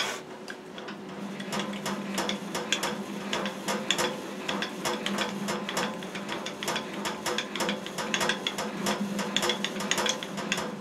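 Clausing surface grinder's front handwheel being cranked, driving the freshly reassembled column's gearing and lead screw to move the carrier, with rapid, irregular mechanical clicking and rattling.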